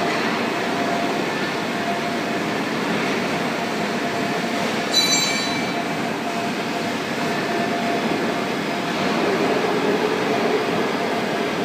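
Steady machinery noise: an even rumbling hiss with a faint steady hum. About five seconds in there is a brief high-pitched ringing chirp.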